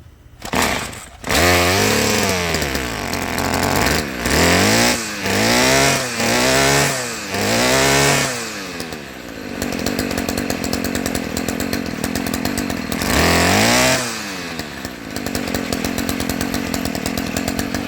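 Stihl string trimmer engine starting, then revved several times, each rev falling back, before settling to a steady idle with one more rev near the end. It runs with the normal sound of an intact exhaust, its loose muffler now bolted back on.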